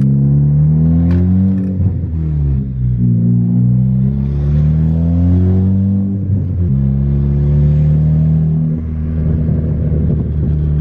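Turbocharged Ford Focus ST engine, fitted with a big Garrett GTX2867R turbo and running a fresh 17 psi base-map tune, revving: its pitch rises and falls twice, drops suddenly about two-thirds in, then holds steady for a couple of seconds.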